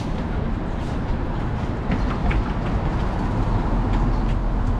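City street traffic: the low rumble of a heavy vehicle going past, growing a little stronger about two seconds in, over general street noise.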